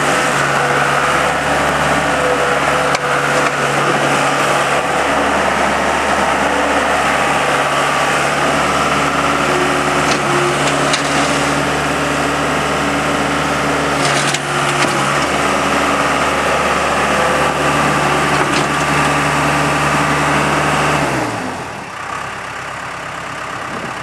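Case 40XT skid steer loader's diesel engine running hard at high throttle, with a steady low hum and a higher whine that dip briefly a few times as the machine works. About 21 seconds in, the engine winds down and the sound drops to a lower, quieter run.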